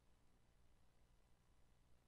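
Near silence: faint steady hum and hiss of the recording's background noise.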